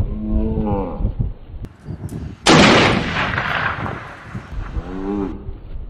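A single sudden loud blast about two and a half seconds in, fading over about a second, with the sharp onset of a gunshot or explosion sound effect. Before and after it come low, drawn-out pitched calls that bend in pitch, like mooing.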